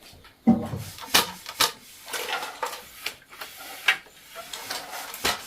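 Irregular knocks and clicks with rubbing and scraping between them, as of wooden objects being handled; the heaviest knock comes about half a second in.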